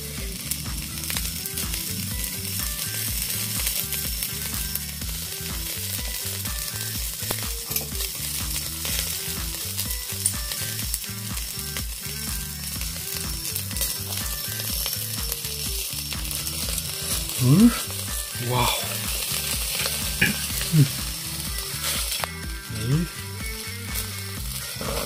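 Pieces of chicken cartilage sizzling and crackling on a wire grill over charcoal in a shichirin. A few short rising sounds stand out above the sizzle in the second half.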